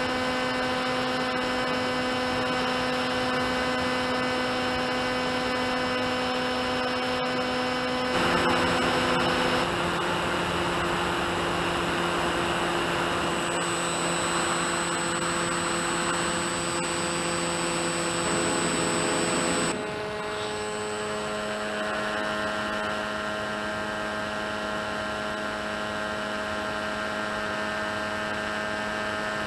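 Brushless electric motor and propeller of an FX-61 flying wing, whining steadily in a climb at about 80% throttle. The whine shifts pitch about 8 seconds in and again about 20 seconds in, when it gets a little quieter.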